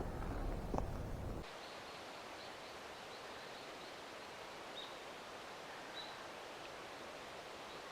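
Outdoor ambience: for the first second and a half a louder low rumble with a few clicks, which cuts off abruptly to a steady quiet hiss with faint, short, high bird chirps scattered through it.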